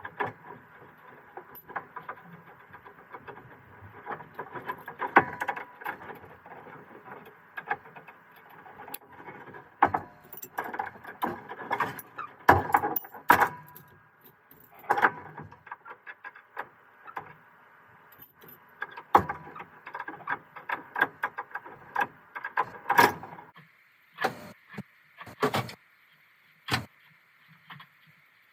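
Irregular clinks, clacks and knocks of hand tools and metal parts being handled, some much louder than others, over a faint steady hum that gives way to a thinner, higher hiss near the end.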